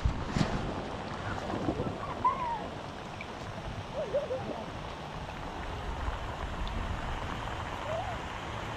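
Steady rain falling on a calm river surface, an even hiss of drops on water. A brief louder knock comes right at the start, and a few faint short calls sound in the background.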